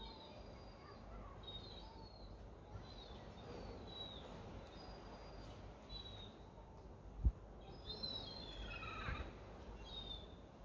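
Small birds chirping, short high calls about once a second, with a quick run of notes falling in pitch about three-quarters of the way through, over a low steady background rumble. A single low thump about seven seconds in.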